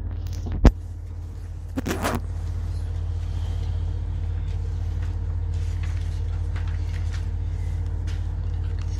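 A steady low hum on the recording, with a sharp click about a second in and a brief noisy rustle around two seconds in.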